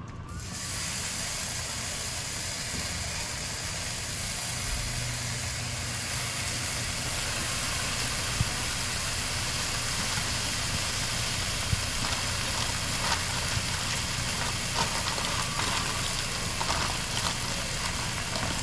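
Raw bacon strips sizzling on a hot propane flat-top griddle: a steady frying hiss that starts suddenly as the first strips go down, with sharp pops and crackles of spitting fat coming in over the second half. A low steady hum runs beneath.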